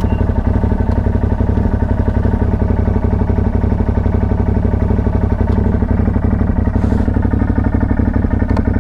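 CFMoto 1000 ATV's V-twin engine running steadily at a constant low speed, with no revving.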